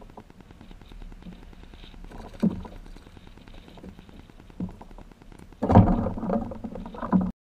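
Handling noise in a fishing kayak: a few sharp knocks, then a louder cluster of thumps and rubbing near the end before the sound cuts off abruptly.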